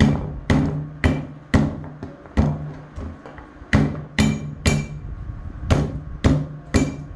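Garlic cloves being smashed with the flat of a cleaver on a wooden chopping board: sharp, loud whacks, about a dozen of them, roughly two a second with short pauses.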